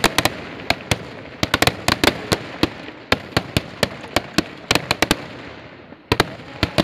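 Kerala temple-festival eedu vedi fireworks: firecrackers going off in a rapid, irregular string of loud bangs, several a second, with a brief lull a little before the end.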